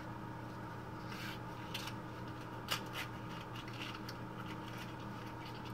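Hands handling small objects out of frame: soft rustling and scraping with scattered light taps and crackles.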